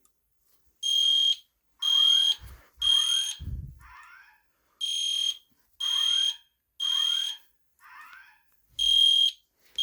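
EST Genesis fire alarm horn sounding the code-3 temporal pattern: three half-second beeps about a second apart, then a pause, repeating. Fainter rising whoop sweeps from the Genesis speaker strobe's code-3 whoop sound in the gaps, and there is a brief low knock about three and a half seconds in.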